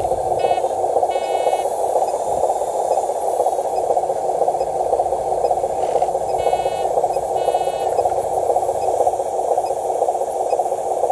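Steady noisy drone of a scale RC dump truck's electric motor and gearbox as it crawls over dirt, with a few short high chirps near the start and again about two-thirds of the way through.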